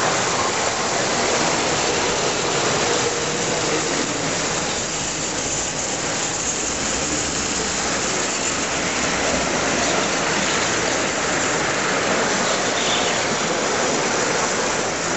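Standard Gauge tinplate toy trains running on three-rail metal track: a steady rumbling clatter that blends into the constant background noise of a large hall.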